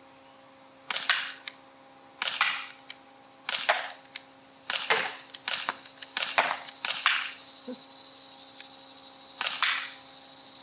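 Gamo P-430 CO2-powered .177 pellet pistol firing about eight semi-automatic shots, each a sharp pop, spaced one to two seconds apart with a longer pause before the last shot. Fainter ticks come between the shots.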